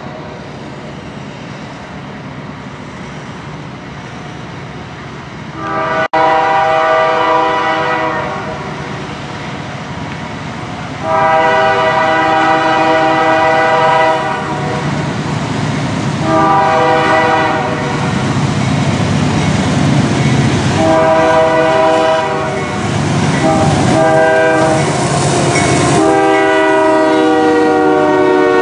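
Union Pacific diesel locomotive's multi-note air horn sounding six blasts, the last four in the long-long-short-long pattern of a grade-crossing warning. Under the horn is the rumble of the locomotives and wheels growing louder as the train closes in and passes.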